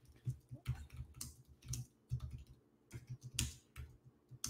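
Typing on a computer keyboard: an irregular run of quick key clicks, a few a second, with the loudest strokes a little past the middle.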